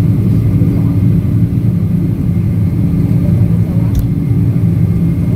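Steady low rumble of a jet airliner's engines and its rolling on the ground, heard inside the passenger cabin. A single sharp click sounds about four seconds in.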